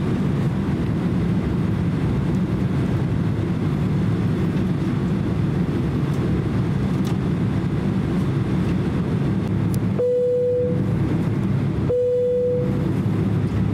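Steady low rumble of a Boeing 767-300's turbofan engines and airframe heard from inside the cabin while the airliner taxis. Near the end, two short steady tones sound about two seconds apart.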